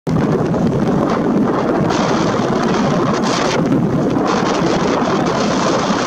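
Strong wind blowing on the microphone, a steady rushing rumble that surges in gusts, with no gull calls heard.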